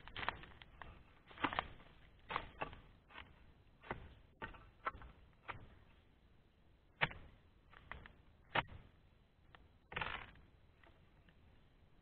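Dodos harvesting chisel jabbing and chopping at the frond bases and fruit-bunch stalk of a young oil palm: a string of irregular sharp chops and knocks. There is a longer scraping rustle about ten seconds in. The bunch is wedged tight among the fronds, so it takes repeated strikes.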